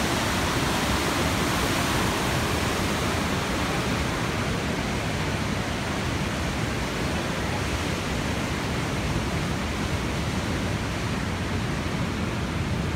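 A flood-swollen river waterfall and whitewater rapids rushing, a steady roar of water running at record high water.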